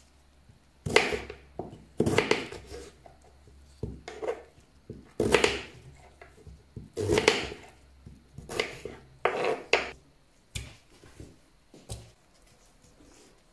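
A kitchen knife slicing through a beetroot on a wooden cutting board. There are about seven separate cuts, one every second or two, each ending as the blade knocks on the wood. Two lighter knocks follow near the end.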